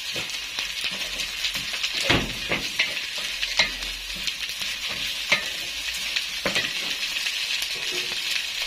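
Basmati rice toasting in butter and oil in an aluminium pot, sizzling steadily while a wooden spoon stirs it, with the spoon scraping and knocking against the pot now and then.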